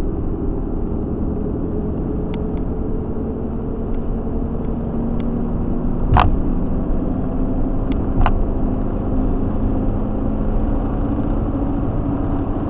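Steady road and engine noise of a car cruising at highway speed, heard from inside the cabin, with a low drone throughout. Two sharp knocks stand out, about six and eight seconds in.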